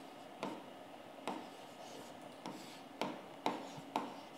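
Stylus writing on the glass of an interactive display board: faint scratching strokes broken by about six sharp taps as the pen tip comes down on the screen at uneven intervals.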